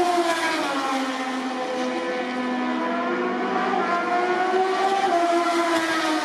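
Several Moto2 race bikes' Triumph 765 cc three-cylinder engines revving hard and pulling away from a standstill in practice starts. Their pitches overlap, dropping as gears change and rising again as each bike accelerates.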